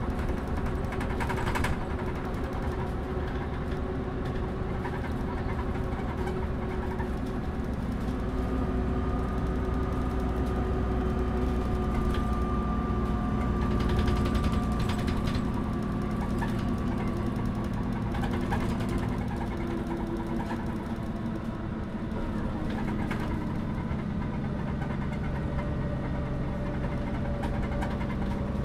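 Inside a MAN NÜ 283 low-floor bus while it drives: the diesel engine runs steadily, its pitch and level shifting slowly with load, and the bus body and fittings rattle and click throughout.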